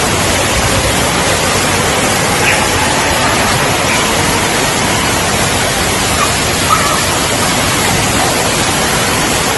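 Steady rush of water pouring down water-slide run-out lanes and splashing at their ends, an even, loud wash of noise.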